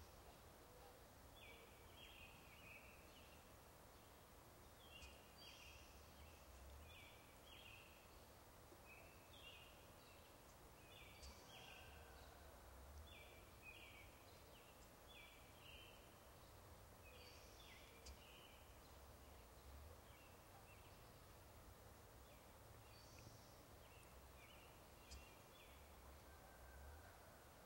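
Faint songbird singing over near silence, repeating a short phrase of two or three high notes about every second or two.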